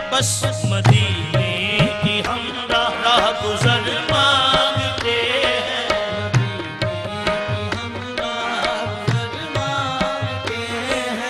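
Qawwali naat performance: a voice singing a wavering melodic line over held harmonium chords, with tabla and hand-claps keeping a steady rhythm.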